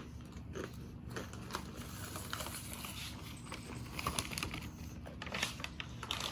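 Faint handling noise: scattered light clicks and small rustles over a low steady hum.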